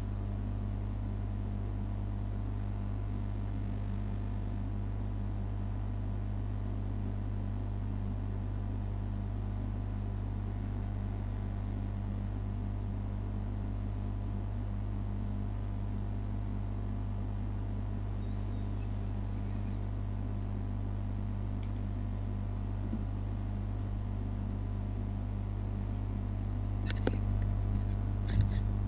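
Steady low electrical hum with a few fainter higher tones above it. Near the end come a few short clicks or knocks.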